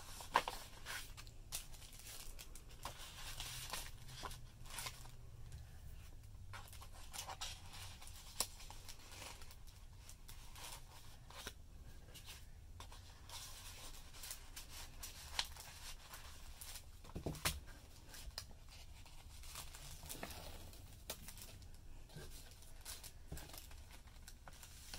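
Kraft-paper envelope and paper sticker sheets rustling and crinkling as they are handled and slid together, with scattered soft taps and clicks. The release strip is peeled from the envelope's self-seal flap and the flap is pressed shut.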